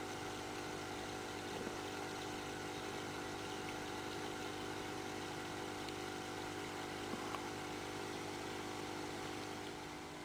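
Steady mechanical hum with several fixed tones, a little quieter near the end.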